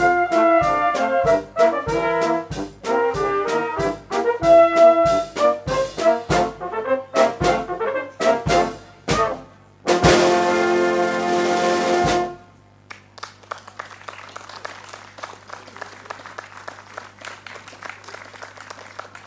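Small brass band (cornets, alto horn, trombones, tuba and drum kit) playing the last bars of a piece over a steady beat. It ends on a long held chord with a cymbal roll about ten seconds in and cuts off at about twelve seconds. Light, scattered clapping follows.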